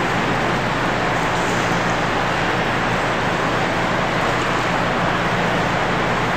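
Steady rushing noise of an indoor swimming pool hall, with a faint low hum underneath.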